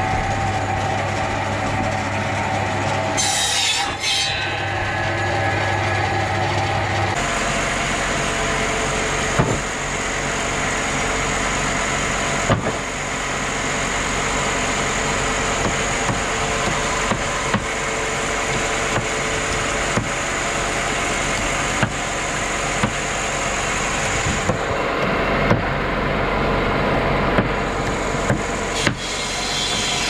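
Sawmill machinery running steadily, with scattered sharp knocks of wood. A low hum cuts out about seven seconds in and a high whine takes over, dropping away near the end.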